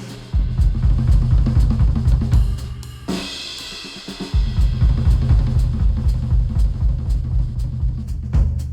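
Drum-driven music track played back through headphones and recorded by microphones at the earcups: a kit beat of kick, snare and hi-hats over a bass line. The low end drops out for about a second a little past the middle, then the full beat comes back.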